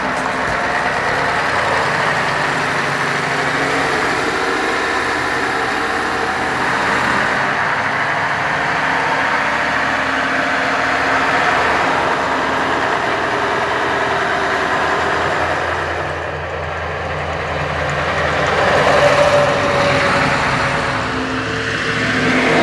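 Mercedes-Benz NG 2635 truck's diesel engine running as the tractor unit pulls a loaded tipper semi-trailer, setting off and driving on. The engine sound is steady and swells briefly about three-quarters of the way through.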